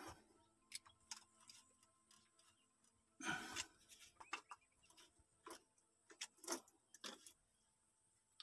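Faint, scattered clicks and small knocks from a plastic solar charge controller and its wires being handled and worked with a screwdriver at the terminals. The loudest knock comes about three seconds in.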